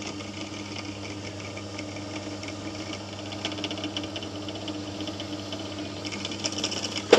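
Bench drill press running, its motor making a steady hum while a 3 mm bit cuts through a metal bracket with a rough grinding sound. There is a sharp click near the end.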